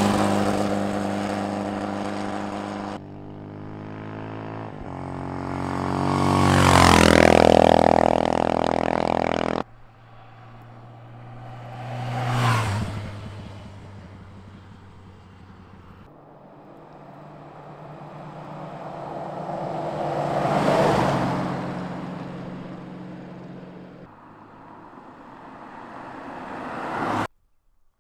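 A string of separate vehicle pass-bys cut one after another, each engine note swelling as it comes near and then fading. It opens with a Volkswagen Baja Bug's exposed air-cooled engine going by, and a motorcycle passes in the middle. The loudest pass, around seven seconds in, rises in pitch as the vehicle accelerates, and the sound cuts off suddenly near the end.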